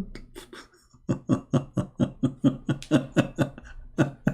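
A man laughing in a long, even run of short "ha" bursts, about four a second, starting about a second in.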